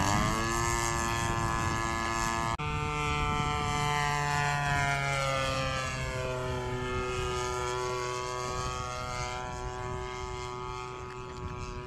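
Impulse 100TD radio-controlled model airplane's motor and propeller running in flight. The pitch falls slightly at the start; after a sudden break about two and a half seconds in, it drifts down and back up as the sound slowly fades.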